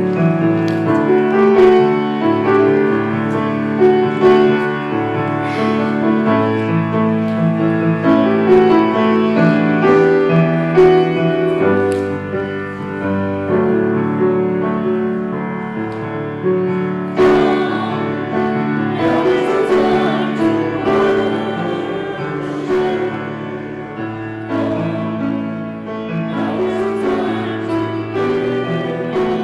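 Grand piano playing, joined a little past halfway by a small group of voices singing.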